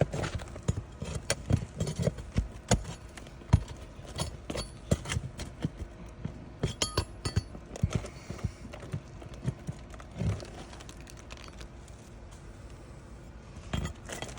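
Irregular clicks, knocks and clinks of hand tools working on an asphalt-shingle roof as shingles and their nails are pried out, busy for the first ten seconds or so and then sparse.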